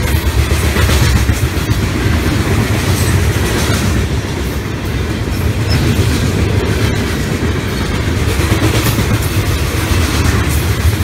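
Freight train's boxcars and tank cars rolling past close by: a steady heavy rumble with wheels clicking over the rail joints.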